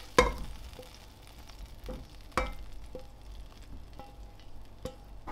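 Plastic slotted spatula scraping cooked pork mince out of a hot nonstick frying pan into a bowl, over a faint sizzle. Four or five sharp knocks of spatula and pan against the bowl come through, the loudest just after the start.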